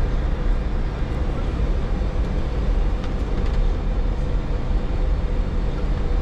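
Steady low rumble of an Airbus A310 cockpit with its twin turbofan engines running, a faint steady hum running through it.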